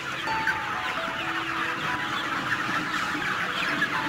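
A large flock of broiler breeder chickens, hens and roosters together, clucking and squawking in a dense, continuous chatter of many overlapping calls, excited at feeding time.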